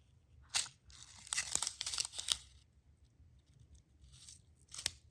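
Packaging being handled and torn open while a toolkit is unpacked: a burst of crinkling and tearing, with a sharp click shortly before it and another near the end.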